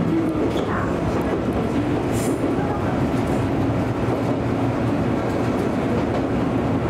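Electric local train on the Izuhakone Railway Sunzu Line running between stations, heard from inside the train: a steady rumble of wheels on rail with a low hum. There is a brief high hiss about two seconds in.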